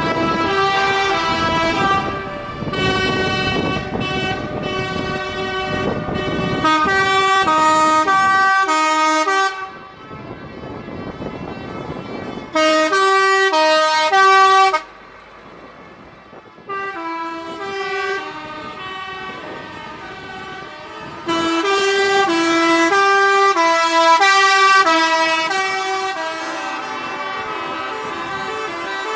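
Trucks' multi-tone musical air horns playing tunes as the trucks drive past, the notes stepping up and down several times a second, in long runs with short pauses between. Diesel engines and tyres run underneath, heaviest in the first third.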